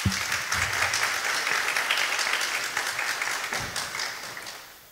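Audience applauding, starting suddenly and fading away near the end.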